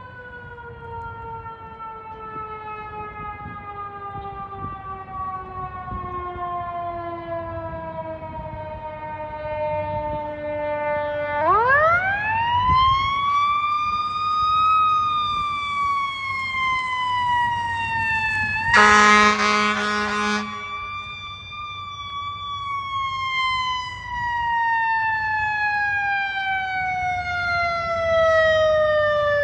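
Fire department emergency vehicle siren wailing: a slow falling wind-down, then a sharp rise about eleven seconds in and another long slow fall. A short horn blast sounds about two-thirds of the way through.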